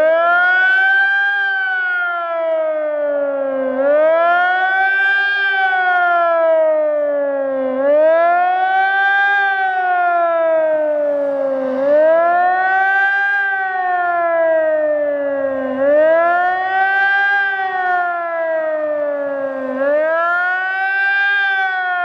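New electronic civil-defence siren sounding a wailing tone that rises and falls about every four seconds, with a lower tone moving in step beneath it. This rising and falling wail is the German warning signal to the population, here sounded as a test alarm.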